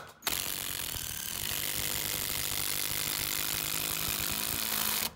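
Cordless impact driver with a socket hammering a 6-inch lag screw up into wooden floor boards: a fast, steady rattle of impacts, the hammer mechanism working against the high torque the long lag screw needs. It starts a moment in and stops abruptly just before the end.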